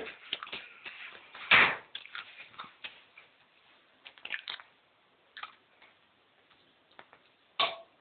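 Scattered clicks and knocks, with a louder thump about one and a half seconds in and another near the end.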